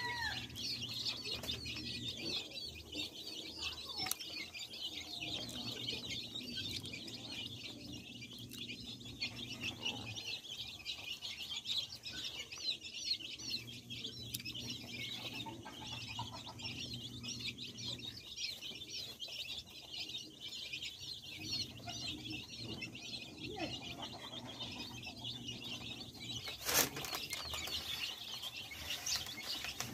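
A brood of young chicks peeping continuously, many short high chirps overlapping in a dense chorus. A brief, loud sharp noise cuts in near the end.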